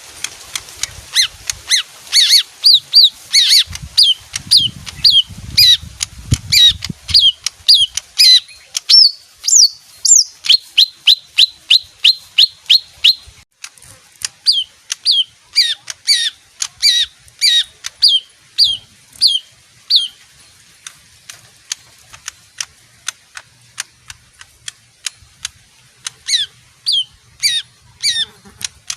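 A pet leafbird singing a long run of sharp, downward-sliding whistled notes, about two a second. It stops at around twenty seconds and starts again with a few notes near the end.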